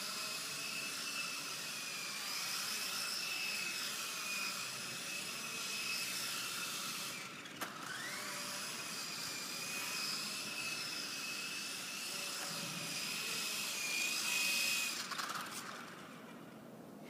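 Small electric motor of a remote-control toy whining steadily at a high pitch. It cuts out briefly about halfway through, spins back up to speed, and stops near the end.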